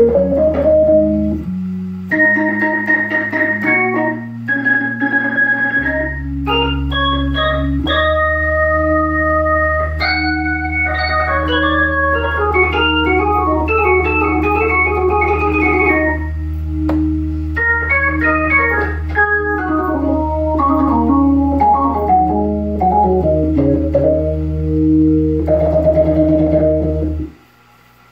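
Hammond organ played with its percussion on: held low notes under changing chords and quick runs of short notes. The playing stops abruptly near the end.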